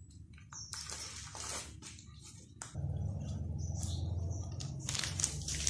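A bag rustling and crinkling as it is handled, in short scratchy bits. A low steady hum comes in about halfway through.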